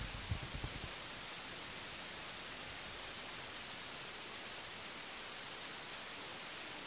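Steady hiss from the recording's own noise, strongest in the high frequencies, with a few faint low bumps in the first second.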